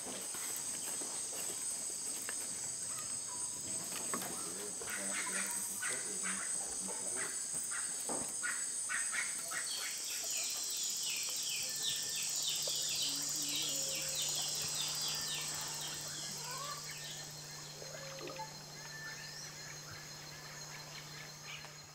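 Tropical forest insects: a steady high-pitched chorus, joined about ten seconds in by a fast, rhythmic pulsing call. A low steady hum starts about a second later, with a few faint chirps and clicks scattered through.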